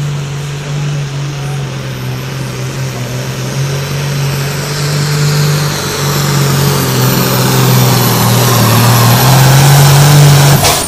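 Super Sport class pulling tractor's diesel engine running flat out under load as it drags the weight sled, holding a steady note and getting louder, with a high thin whistle above it. The sound cuts off abruptly near the end.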